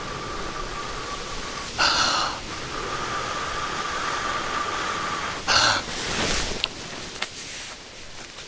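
A person blowing long, steady breaths into a tinder nest of wood shavings to coax a char-cloth ember into flame, with a faint whistle in each blow and a quick, sharp inhale between blows, twice. The tinder catches near the end, with a few small clicks.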